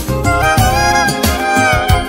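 Music: a melody with gliding notes over a regular beat.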